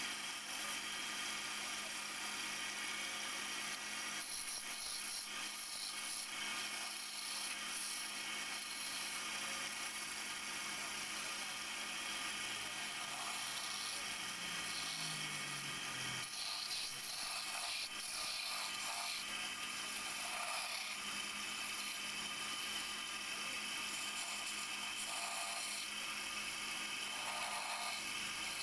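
Wood lathe running with a steady hum while a hand-held turning tool cuts a spinning wooden spindle, the cuts coming and going as a scraping hiss. A short falling tone sounds about halfway through.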